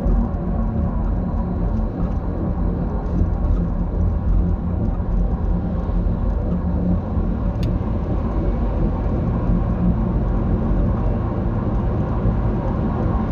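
2008 Dodge Grand Caravan making a steady low rumble with a droning tone running through it: the grinding noise being recorded from the van. A single sharp tick about eight seconds in.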